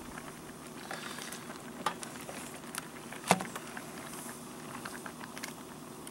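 Pot of pasta water boiling on a pocket stove, with a utensil clinking and scraping against the metal pot while stirring; one sharper clink about halfway through.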